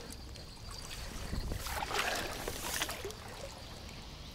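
Small waves lapping and sloshing at the shallow shoreline, briefly louder in the middle.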